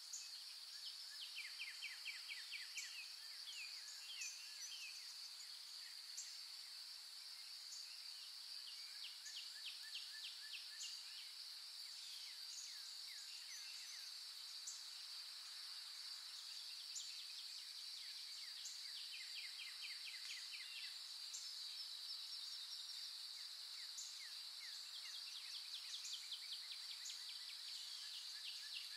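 Faint natural ambience: a steady high-pitched insect drone, with small birds repeatedly giving runs of quick chirps over it.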